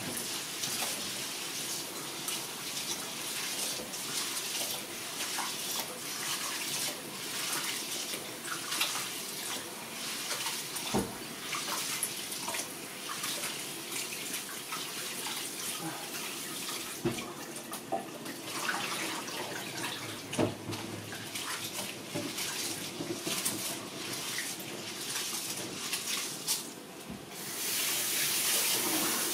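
Water running from a tap and splashing, with scattered light knocks and clinks, as rice is washed in water. Near the end the flow gets louder and steadier.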